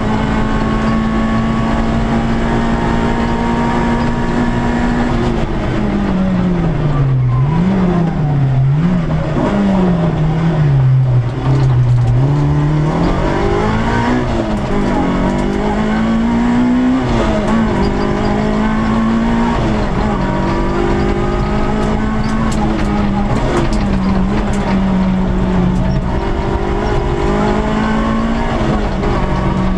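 Peugeot 106 S16's 1.6-litre 16-valve four-cylinder rally engine heard from inside the cabin at full throttle, running high and steady. After about five seconds the revs fall and rise several times in quick succession as the car brakes and shifts down. It then climbs back up and holds high, with brief dips at the gear changes.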